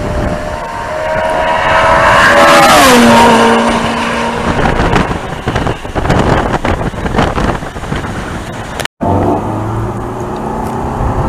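A naturally aspirated V8 sports car passes at high revs, loudest about two to three seconds in, its engine note dropping sharply in pitch as it goes by. After a cut near the end, the Ferrari 430 Scuderia's 4.3-litre V8 runs at low revs, heard from inside the cabin.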